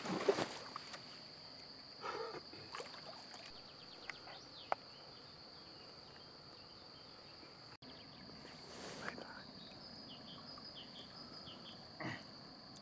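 Quiet lakeside ambience with a steady high-pitched whine throughout. Brief splashing and rustling as a carp is drawn into the landing net near the start, and a few short clicks and knocks later, under some low speech.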